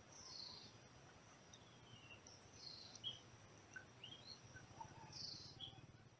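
Faint, high chirps from a hungry baby bird begging: short peeps and a few falling slurs, scattered irregularly, over a low steady hum.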